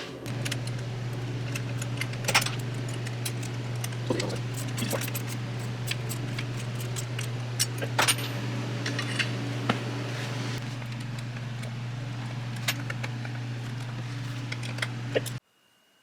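Small metal parts and hand tools clicking and clinking in irregular taps while a chain catch is fitted to a Stihl MS660 chainsaw, over a steady low hum. All sound cuts off abruptly near the end.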